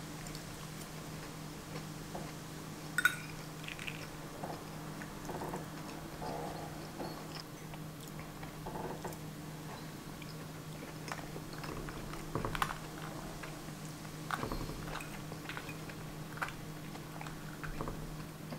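Close-miked chewing and mouth sounds of a person eating a cooked breakfast, with a few sharp clicks of cutlery on the plate, the loudest about three seconds in. A faint steady hum lies underneath.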